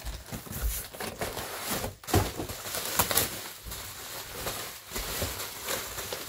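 Bubble wrap and cardboard packaging crinkling and rustling as a parcel is unpacked by hand, with a few sharper crackles about two and three seconds in.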